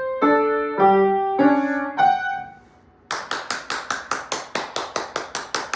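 The last notes of a slow melody, single ringing notes of about half a second each that fade out a little past two seconds in. After a short pause, rapid even tapping starts, about five taps a second.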